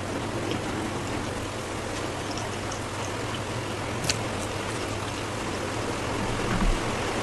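Steady hiss with a low hum underneath, broken by a few faint clicks, the sharpest about four seconds in.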